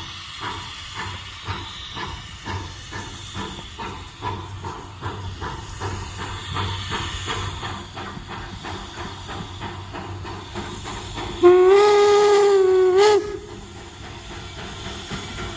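Replica Union Pacific No. 119, a 4-4-0 steam locomotive, chuffing with evenly spaced exhaust beats as it moves along the track. Near the end comes one steam whistle blast of a little under two seconds, the loudest sound, its pitch bending up as it ends, followed by a hiss of steam.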